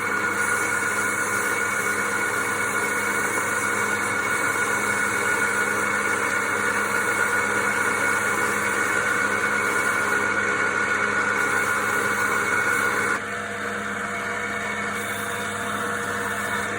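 Wood lathe running with a steady motor hum and whine. About 13 seconds in it gets slightly quieter and the higher whine stops.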